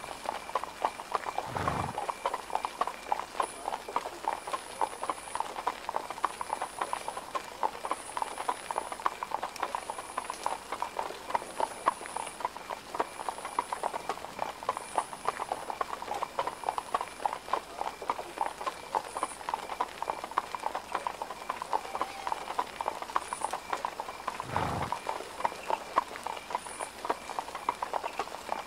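Horse hooves clip-clopping in a dense, continuous clatter, with a brief low thud twice.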